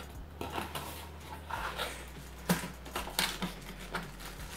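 Cardboard packaging of a lightbox being opened by hand: flaps and a cardboard insert scraping and rustling, with scattered taps and two sharper knocks about two and a half and three seconds in.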